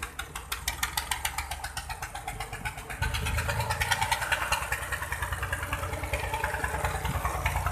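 Diesel tractor engine running with a rapid, even clatter as tractors drive past, getting louder about three seconds in as one comes close.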